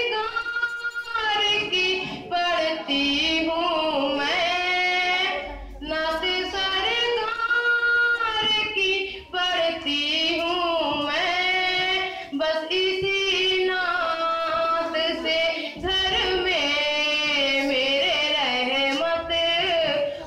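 A girl singing a naat, an Urdu devotional song, solo through a microphone, in long held and ornamented phrases with short breaths between them.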